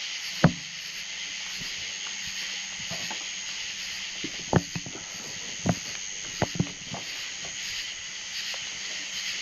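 Steady chorus of night insects, a continuous high chirring with a faster pulsing above it. Several sharp knocks cut through: one about half a second in and a cluster between about four and a half and seven seconds in.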